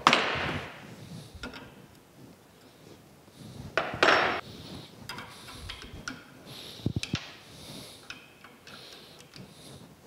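Hand work on a brass steam whistle valve being reassembled: a brief scraping rustle at the start and another about four seconds in, then a few sharp metal clicks around seven seconds as the handle lever is fitted onto the valve stem.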